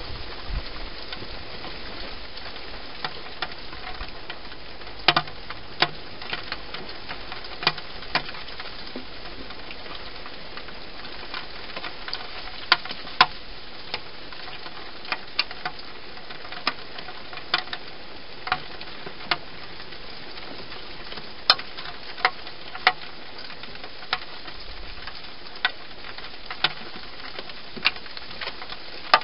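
Wild hedgehog eating from a dish inside a plastic-box feeding station: irregular sharp crunches and clicks, one or two a second, over a steady hiss.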